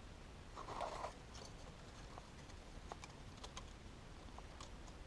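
Dry sticks being handled and woven together: faint scattered clicks and scrapes, with a brief louder rustle about a second in.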